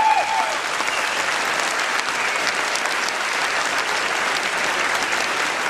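A large crowd of students clapping together in a lecture hall: dense, steady applause.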